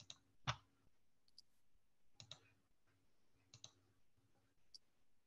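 Several faint computer mouse clicks, scattered singly and in quick pairs, with near silence between them.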